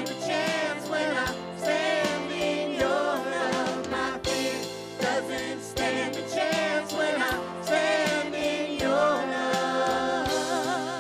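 Worship band performing live: several voices singing together in harmony over acoustic guitar accompaniment.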